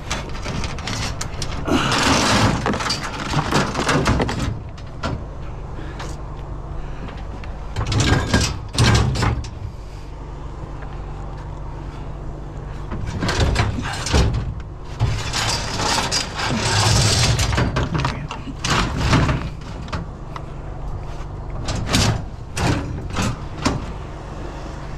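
Scrap metal items clanking and scraping as they are shifted and set down in a vehicle's bed, in several bursts. A steady low engine hum runs underneath.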